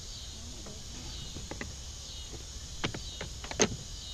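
Insects calling steadily in the background, with a few light clicks and knocks about three seconds in as a hooked cord and fishing gear are handled on a jon boat's deck.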